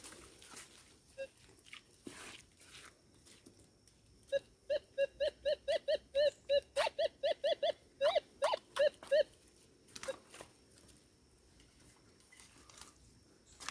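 Minelab Gold Monster metal detector beeping in a quick run of about twenty short tones, roughly four a second, from about four seconds in to about nine seconds in. The beeps signal a buried metal target under the coil.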